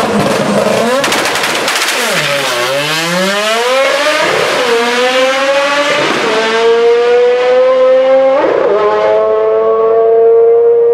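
Mazda FC RX-7 drag car launching and accelerating flat out down the strip. The exhaust pops and crackles at the launch, shooting flame. The engine then revs up in rising sweeps broken by about four gear shifts, and holds a high, steady note in top gear near the end.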